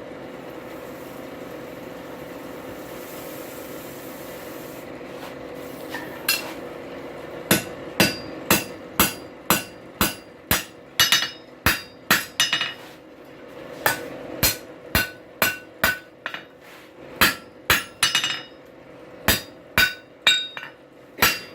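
Hand hammer striking hot steel on an anvil, about two blows a second in runs with short pauses, upsetting a 90-degree corner in the bar for a drive hook. The blows begin about seven seconds in, after a steady hum.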